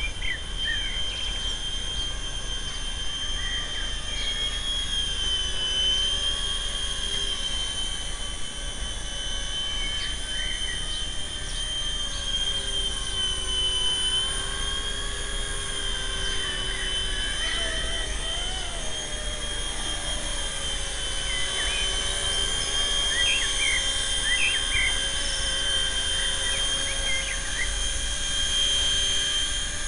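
Carson EC145 DRF fixed-pitch micro RC helicopter in flight: its electric motor and rotor give a steady high whine that wavers slightly in pitch as the throttle changes. Birds chirp now and then.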